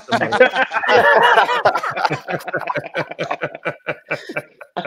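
Men laughing together: loud laughter for about the first two seconds, then trailing off into a run of short, repeated chuckles.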